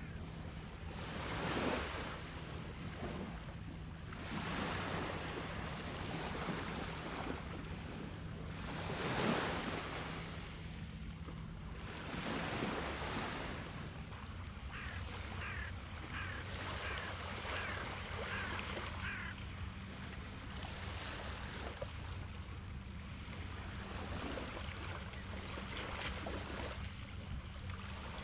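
Small waves washing up a shell-and-pebble beach, swelling and easing every few seconds. About halfway through, a bird calls for several seconds in a run of short, quick notes.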